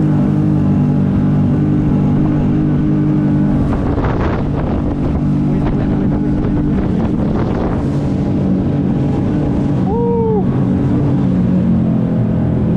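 Tohatsu outboard motor running steadily at speed on a small catamaran boat, with water rushing past the hulls and wind on the microphone; from about four to eight seconds the water and wind noise grows over the engine's hum.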